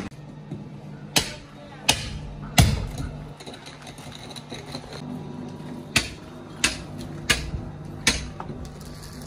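A series of sharp knocks, coming in runs about 0.7 s apart with a pause between the runs, over a steady low hum.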